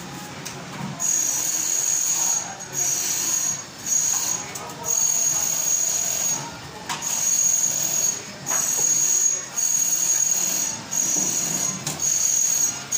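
Background music with a steady tambourine rhythm.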